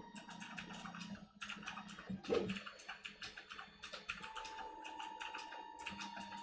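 FDM 3D printer's stepper motors driving the print head over a small part: fast, uneven clicking and ticking from the short moves, over a steady whine. A brief swoop in pitch a little over two seconds in is the loudest moment.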